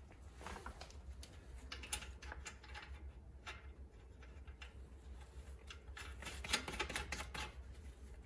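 Faint, irregular light clicks and taps of hand tools, a bolt and small parts being handled while a bolt is cleaned and fitted back at a car's front steering knuckle, over a low steady hum.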